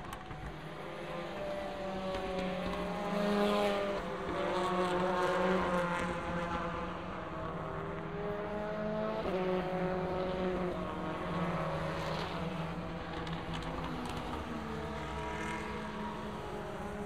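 A train of WTCC touring cars (Citroën, Honda, Lada and Chevrolet), each with a 1.6-litre turbocharged four-cylinder engine, passes one after another through a corner. Several engine notes overlap, their pitch falling and rising as the drivers lift and accelerate. The cars are loudest a few seconds in.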